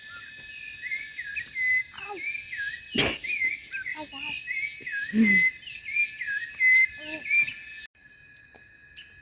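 A bird sings the same short warbling whistled phrase over and over above a steady insect chorus of crickets or cicadas. There is a single sharp click about three seconds in, and the birdsong cuts off abruptly near the end, leaving only the insect sound.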